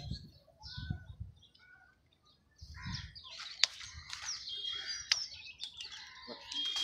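Small birds chirping and twittering, with two sharp clicks in the middle and a short dead-silent gap about two seconds in.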